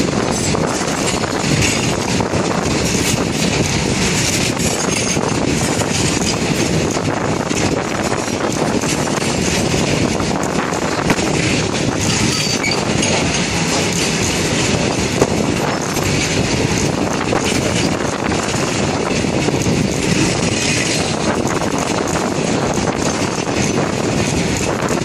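Loaded coal wagons of a freight train rolling past close by: a steady rumble of wheels on rail, thick with short clicks and knocks.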